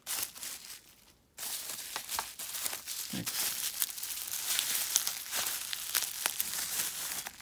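Packaging crinkling and tearing as a small wrapped die-cast car is unwrapped by hand: it starts suddenly after about a second and a half of quiet and goes on as a dense crackle with many small clicks.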